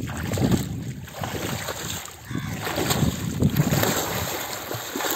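Wind buffeting the microphone, with water sloshing and splashing in uneven strokes.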